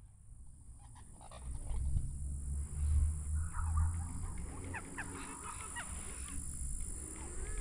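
Birds calling, with honking calls about halfway through, over a low rumble and a steady high whine.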